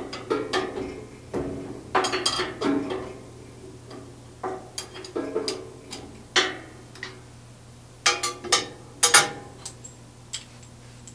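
Steel wrenches clinking and clanking on the nut and bolt at the column joint of a Jet 14-inch band saw's cast-iron frame as the bolt is worked loose. An irregular scatter of sharp metallic clinks with brief ringing, the loudest about two, six and nine seconds in.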